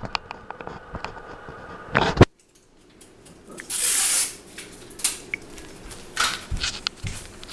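Close rustling and scattered clicks. A loud knock about two seconds in is followed by a short drop to near quiet, then a burst of hissy rustling around four seconds in.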